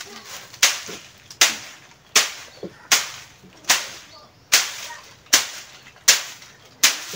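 A stick threshing a heap of dried bean plants, striking it nine times at a steady pace of about one sharp swishing whack every three-quarters of a second, beating the pods to free the beans.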